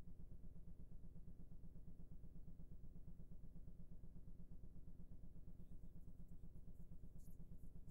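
Faint, low, steady hum with a fast, even flutter, and a few faint high ticks near the end.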